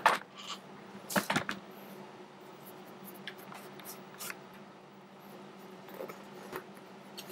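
Handling noise from a plastic airsoft Glock frame being held and turned over on a fabric mat: scattered clicks and rustles, loudest in a short cluster about a second in, over a faint steady hum.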